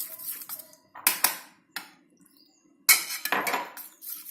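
A spoon knocking and clinking against a mixing bowl while a thin flour-and-water batter is mixed: a couple of sharp knocks about a second in, a short pause, then louder knocks near the end.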